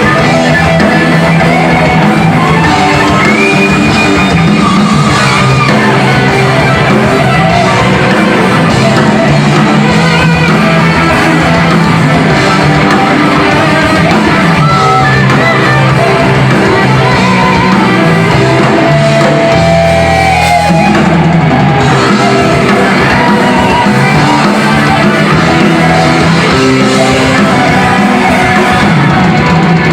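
Heavy metal band playing live and loud: distorted electric guitars and a drum kit under shouted singing, with lead guitar notes bending in places.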